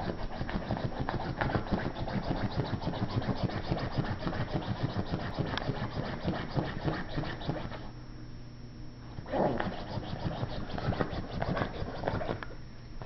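Japanese Chin puppy digging at a couch with its front paws: rapid, continuous scratching of claws on fabric. It stops for about a second partway through, picks up again, and dies down near the end.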